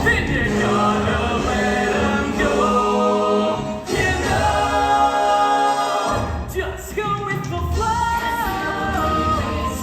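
A stage-musical song: several voices singing together over instrumental backing, with a brief dip in the music about six seconds in.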